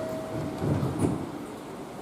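A train door chime's steady electronic tone ends about half a second in. A couple of low thuds and a rumble follow in the carriage.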